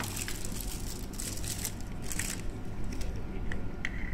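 Clear plastic packaging bag crinkling and rustling as it is handled around an exit push button, with a few short clicks near the end.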